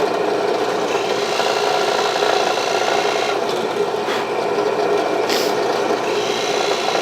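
Electric drill running steadily with a dull bit grinding and rubbing in hardwood as it bores a hole. The dull bit is scorching the wood more than cutting it.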